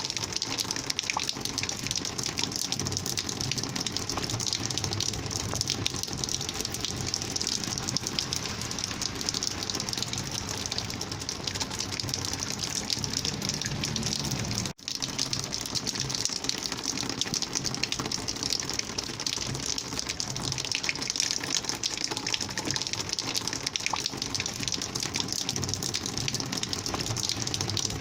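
Rainwater flowing in a steady, dense gush, with a momentary drop-out about halfway through.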